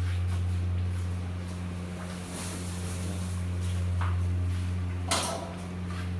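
Steady low electric hum of a running quẩy dough-cutting machine, with a few knocks and clacks of handling, the loudest about five seconds in.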